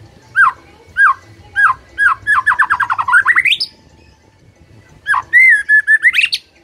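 White-rumped shama singing loudly: three separate whistled notes about half a second apart, then a fast trill of notes that climbs in pitch at its end, and after a short pause a second phrase of held whistles finishing in quick rising notes.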